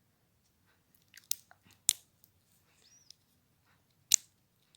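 Plastic links of a Wacky Tracks snap-and-click fidget chain being pushed together, giving a few sharp separate clicks, the loudest about two seconds in and just after four seconds, with a brief high squeak near three seconds.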